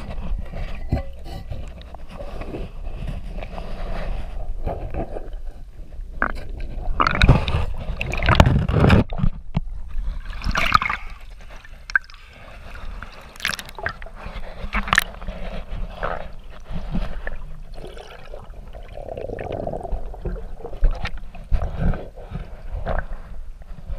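Water gurgling and sloshing around a diver's camera, underwater and at the surface beside a boat hull, coming and going in irregular swells with a few sharp clicks.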